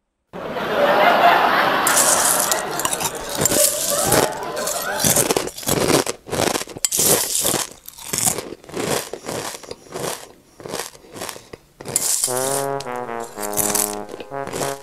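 Crunching as raw onion slices are bitten and chewed, a loud crunch every half second or so, with the odd clink of steel plates. About twelve seconds in a comic brass tune starts.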